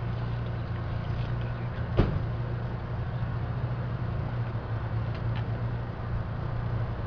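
Small portable generator running steadily with a low, even engine hum, with one sharp click about two seconds in.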